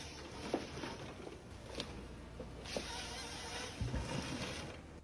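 Log-chopping machine working, a steady rumble and hiss with scattered sharp knocks of wood being cut and split.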